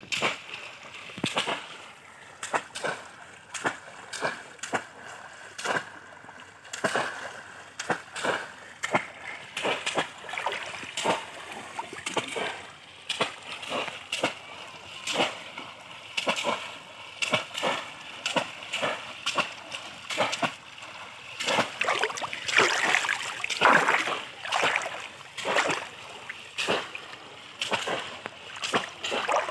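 Repeated splashes of bamboo cone fish traps being plunged down into shallow pond water, together with the sloshing of legs wading through it. The splashes come unevenly, about one or two a second, and are loudest a little past two-thirds of the way through.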